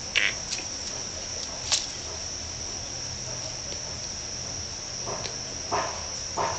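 Steady high-pitched drone of insects chirring, with a few short rustles and taps: one pair just after the start, one near two seconds in, and several more in the last second and a half.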